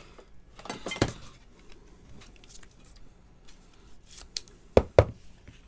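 Trading cards and clear plastic card sleeves being handled: light rustles and ticks of plastic, a click about a second in, and two sharp clicks in quick succession near the end.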